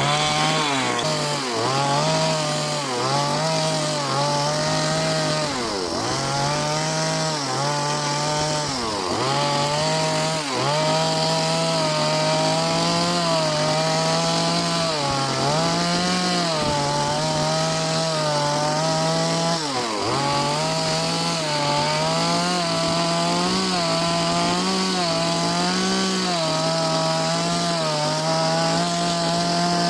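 Two-stroke chainsaw running at high revs as it cuts into wood, its pitch dipping briefly now and then and climbing back as the cut loads the engine.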